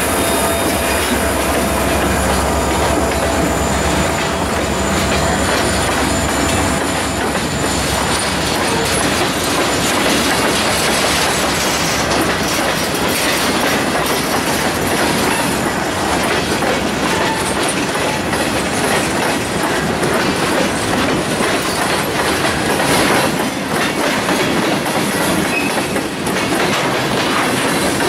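Freight train of covered hopper cars rolling past close by: a steady loud rumble of steel wheels on rail, with clicking as the wheels cross rail joints.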